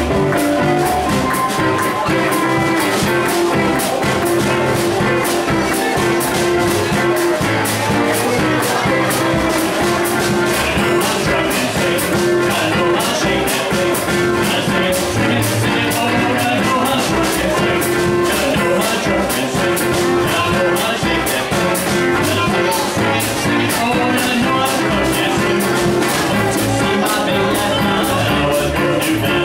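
Small acoustic swing band playing live, with a clarinet playing the lead over plucked upright bass, strummed acoustic guitar and a steady drum beat.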